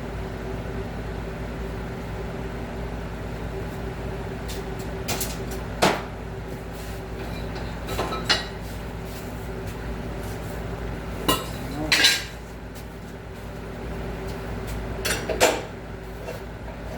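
Steel pieces clanking as they are handled and set down, five or so sharp metallic knocks over a steady hum of a machine or fan.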